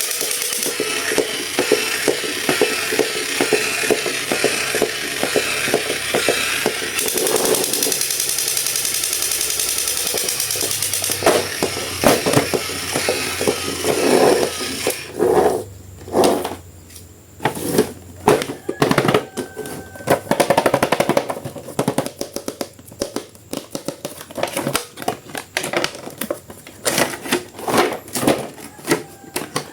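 Background music for about the first half, then a run of irregular clicks, taps and rattles from handling a plastic action figure and its packaging.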